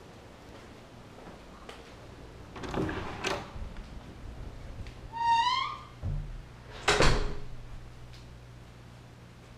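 Wooden front door being opened and shut. The latch clicks, a short rising squeak comes as the door swings, and then there is a loud thud.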